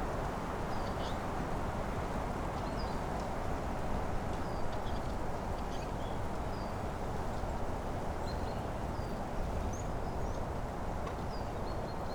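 Small birds calling in a forest with short, high chirps and whistles, scattered every second or so, over a steady rushing background noise.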